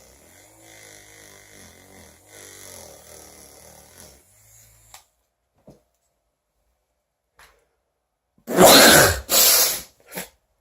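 A small battery-powered handheld fan whirring faintly for about the first five seconds, then, after a pause, a loud sneeze near the end in two bursts, brought on by the fan on the face.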